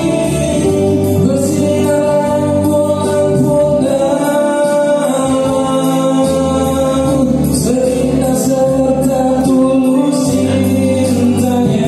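Male voices singing an Indonesian pop ballad together through microphones, several voices in harmony, with an electronic arranger keyboard playing sustained chords and bass beneath.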